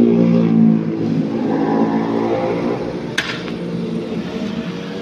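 A passing road vehicle's engine runs loud and fades. About three seconds in, a star mine fires with a single sharp bang, throwing up stars fuelled with aluminium sawdust.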